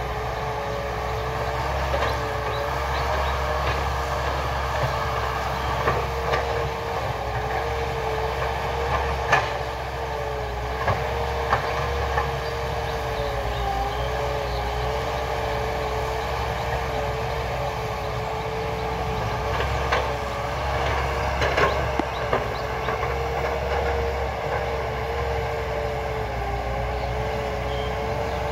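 Caterpillar hydraulic excavator's diesel engine running steadily with a low rumble and a wavering whine, punctuated by scattered knocks and clunks as it works.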